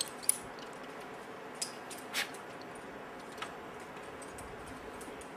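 A few short sharp clicks and light clinks over a steady background hiss, the loudest about a third of a second in, with a brief scrape a little past two seconds: the sounds of a climber moving on rock with metal gear on his harness.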